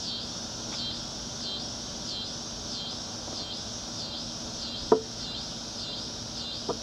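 Insects chirping in a steady pulsing rhythm, about two pulses a second. A sharp click comes about five seconds in and a fainter one near the end.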